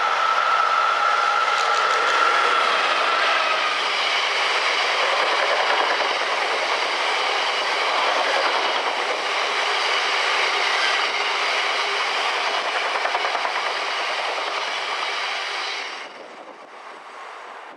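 Freightliner diesel locomotive passing with a long train of cement tank wagons. A steady whine from the locomotive comes first, then the rumble and clickety-clack of the wagon wheels over the rail joints, which drops away sharply near the end as the train clears.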